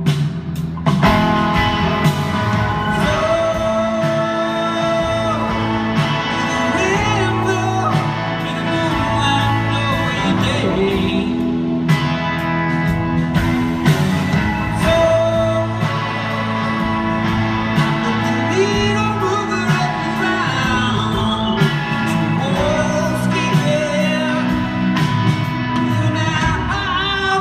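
Live rock band playing a long passage with no sung words: electric guitars over drums, heard loud from the audience.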